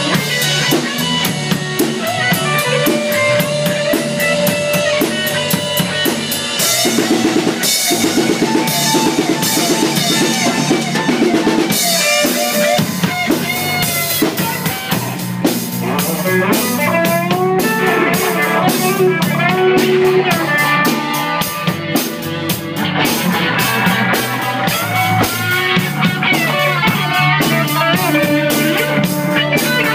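Live rock band jamming: an electric guitar plays held and sliding lead lines over electric bass and a drum kit.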